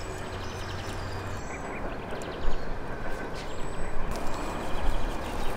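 Steady outdoor background noise, with a few faint, brief high chirps.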